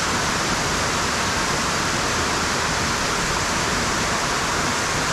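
Steady rush of water falling over a waterfall, an even, unbroken roar with no change in level.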